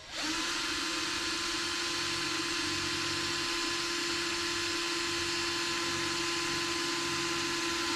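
Power drill spinning up and running steadily with a hole saw cutting through half-inch plywood, a constant motor whine over the rasp of the cut.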